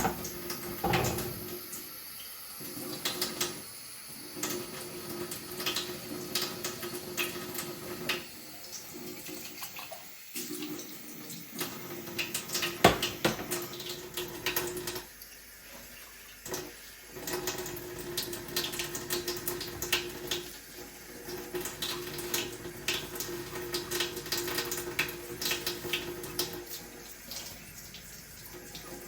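Kitchen tap running into a sink while dishes are washed up, with frequent clinks and knocks of crockery throughout.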